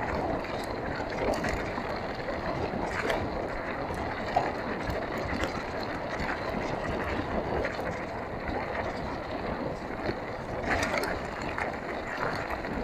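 Wind rushing over the camera microphone and mountain bike tyres rolling fast on a dirt track. Now and then there are short knocks and rattles from the bike going over bumps.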